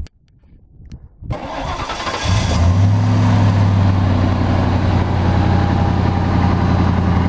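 1998 Ford F-150 pickup being started: a short burst of starter cranking about a second in, then the engine catches and settles into a steady idle.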